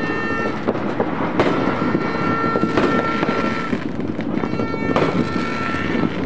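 Fireworks going off: a continuous din of bursts, with louder single bangs every second or two.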